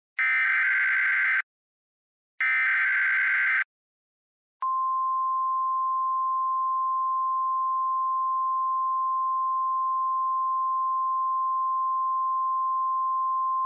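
Emergency Alert System SAME header: two short screechy data bursts, each about a second long, a second apart. After a brief gap, the steady single-pitch 1050 Hz attention tone starts about four and a half seconds in and holds.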